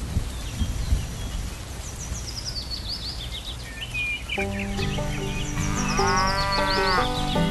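Rain hiss with short, high, falling bird chirps. About halfway through, light background music starts, and near the end a long drawn-out call rises and falls over it.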